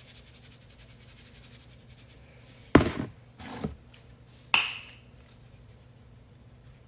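Seasoning bottles handled on a kitchen counter while meat is seasoned: a loud knock a little under three seconds in, a softer knock just after, and a sharp click with a brief ring about a second later.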